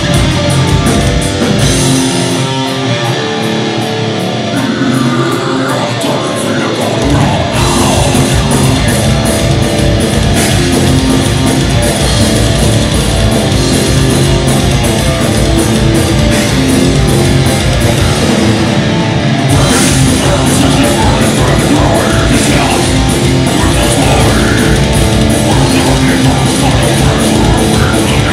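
Live heavy metal band playing loud: distorted electric guitars, bass and drum kit. About two seconds in, the bass and drums drop out and the guitars carry on alone; the full band crashes back in about seven seconds in.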